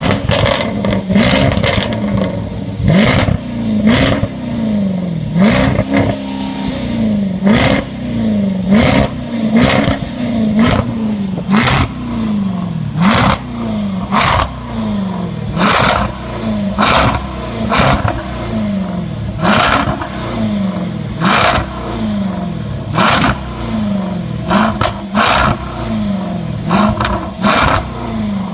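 Jaguar SVR's supercharged 5.0-litre V8 being blipped over and over, about one rev every second and a half, each rise in pitch falling away into sharp exhaust pops and crackles on the overrun.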